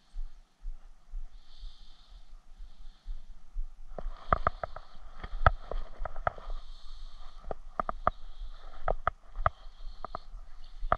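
Irregular sharp clicks and taps from about four seconds in, as a fishing rod and baitcasting reel are handled, over a low wind rumble on the microphone and an on-off high buzz in the background.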